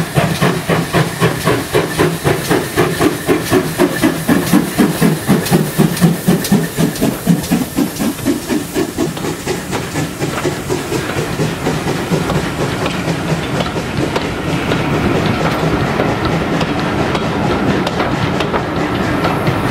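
GWR 5700 Class 0-6-0 pannier tank steam locomotive chuffing with strong, even exhaust beats, about four to five a second, as it hauls a train of carriages past. After about ten seconds the beats fade, and the carriages' wheels roll by with a steady clickety-clack over the rail joints.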